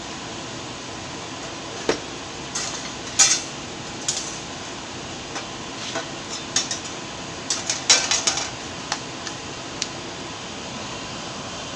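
Metal parts knocking and clinking together as they are handled: about a dozen short, sharp clanks in loose clusters, the loudest about three seconds in and again near eight seconds, over a steady background hiss.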